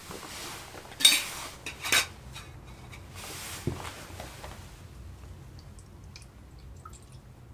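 Camping gear being handled and set down: two sharp clattering knocks about a second apart, a duller knock a couple of seconds later, then light scattered ticks.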